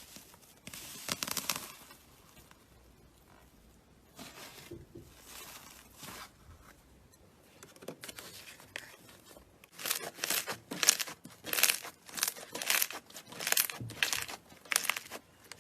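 Slime being squeezed and stretched by hand, making short noisy bursts: a few scattered ones at first, then a quick run of louder ones over the last five seconds or so.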